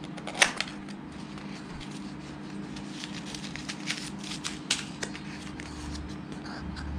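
Small white cardboard box being opened by hand: scattered cardboard clicks and scrapes as the flaps are worked and the inner tray slides out, with a sharper click about half a second in. A faint steady hum runs underneath.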